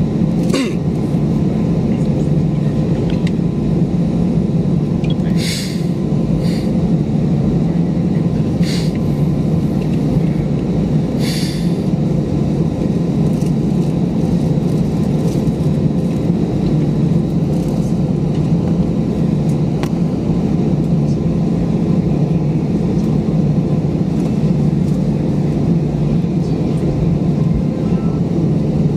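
Steady low rumble of a vehicle in motion, with a few brief higher hisses in the first half.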